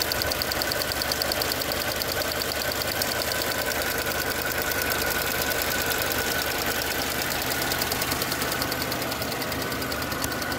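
Idling Mercedes engine with its EVAP canister purge valve ticking rapidly and evenly while it is switched on. The loud ticking is the valve pulsing normally, not a fault.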